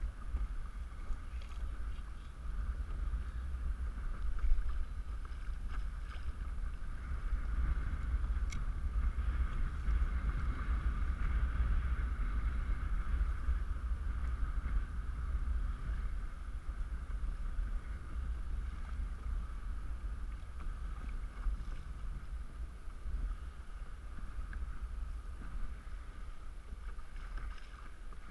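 Wind rumbling on the microphone with water rushing along the hull of a Hobie Outback pedal kayak under way.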